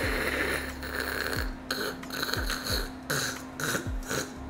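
A man's voice demonstrating the German ach-sound, the voiceless rasping fricative made at the back of the throat: one long 'chhh' for about a second and a half, then a quick run of short 'ch' puffs.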